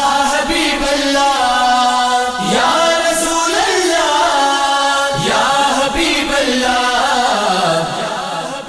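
Wordless devotional naat singing by a male voice, without instruments: long, drawn-out notes that slide up and down, with a hummed vocal backing beneath. It grows a little softer near the end.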